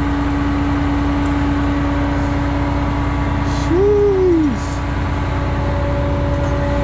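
Diesel truck engine idling steadily with a constant hum. About four seconds in, a short rising-and-falling vocal exclamation.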